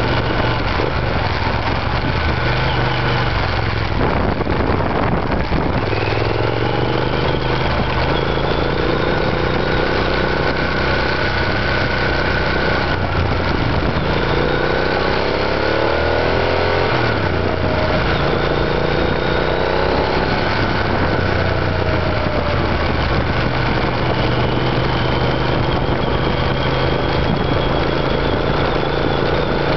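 2006 Triumph Scrambler's 865 cc air-cooled parallel-twin engine, through a TOR aftermarket exhaust, heard on board while riding. The engine note rises several times as it pulls up through the revs and then falls back, over a constant rush of wind and road noise.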